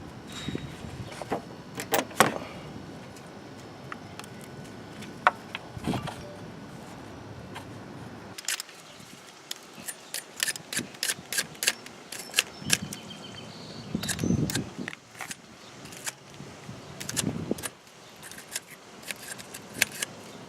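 Metal tools and parts clinking and clicking as they are handled, with irregular sharp ticks and a few heavier knocks.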